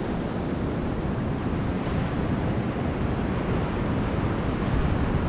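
Ocean surf breaking and washing in a steady wash of noise, with wind noise on the microphone.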